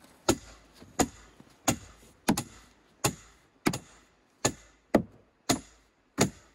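Sledgehammer striking blocks of wood on a canoe hull being carved: a steady run of about ten sharp wooden knocks, roughly one every two-thirds of a second, with a quick double blow a little over two seconds in.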